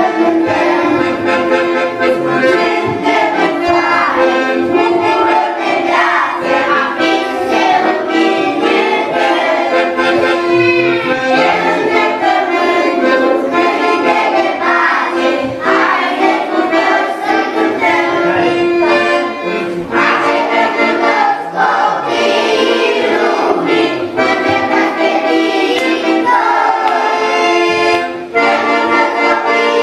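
Accordion playing a song as accompaniment, with a woman and a group of young children singing along.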